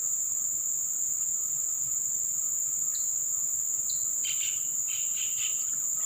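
Insect chorus in an oil palm plantation: a steady high-pitched drone, with a few short chirps in the second half.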